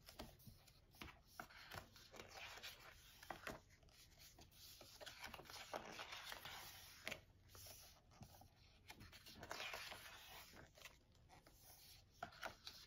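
Faint rustling and sliding of glossy photobook pages as they are turned by hand, with scattered soft ticks of paper.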